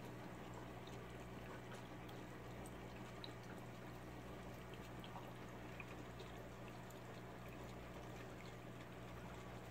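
Aquarium filter running: faint water trickling and bubbling over a steady low hum.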